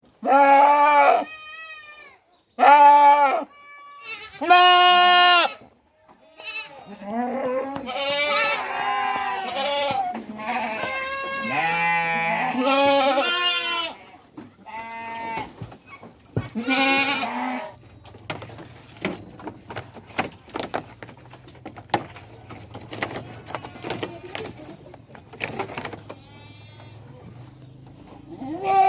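Goats bleating: long, loud, wavering calls, three on their own at first, then several overlapping, then a quieter stretch with scattered clicks and a low hum before one more call at the very end. The calls are a mother goat crying for her kid.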